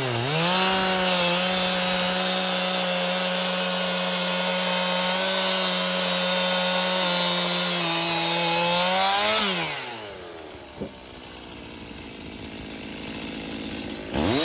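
Stihl MS 291 two-stroke chainsaw cutting through a log at high revs, its engine note dipping briefly near the start as the chain bites. About nine seconds in the throttle is released and the engine winds down to a quiet idle, with one sharp click a little later and a quick rev right at the end.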